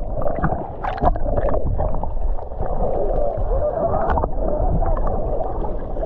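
Water sloshing and gurgling, muffled, with a few sharp knocks about a second in and again around four seconds.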